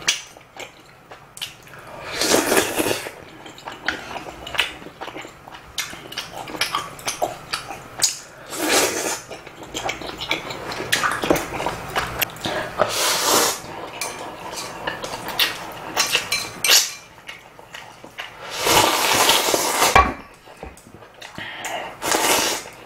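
A person slurping and chewing instant ramyeon noodles, with about five loud slurps a few seconds apart and cutlery clicking against the bowls between them.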